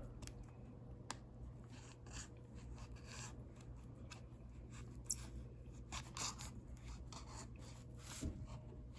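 Faint scratching and rubbing of a plastic blister pack being cut and worked open by hand, with a couple of sharp clicks.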